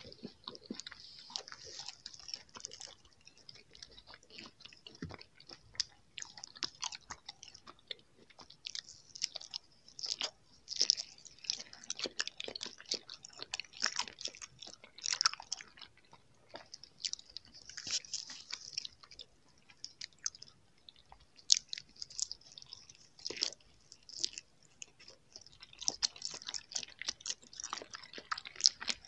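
Close-miked chewing of soft jelly candies: wet, sticky mouth clicks in irregular clusters.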